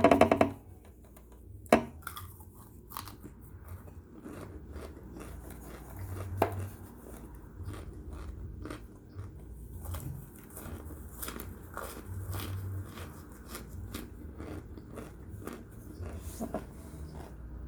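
Person biting and chewing baked cornstarch chunks: sharp crunches at irregular intervals, loudest near the start and again around two and six seconds in, with quieter chewing between.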